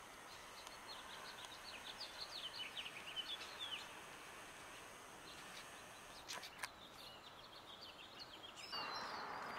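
Faint songbird chirping: a quick run of short high notes, busiest in the first few seconds, over a quiet hiss. Two sharp clicks come a little past the middle.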